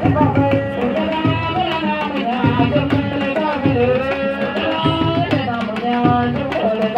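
Music: a voice singing a wavering melody over steady hand-drum rhythm.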